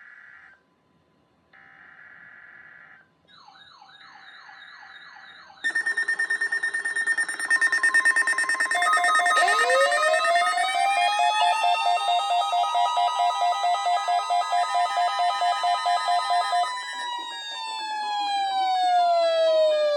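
Layered electronic warning tones: two short bursts of tones, then a fast warbling tone, then steady and pulsing beeps stacked together, with a siren that winds up about halfway in, holds its pitch, and winds down near the end.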